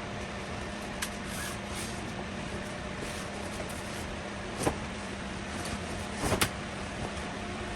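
Steady hum and hiss with a few sharp clicks and knocks: one about a second in, one a little after four and a half seconds, and a quick cluster just past six seconds.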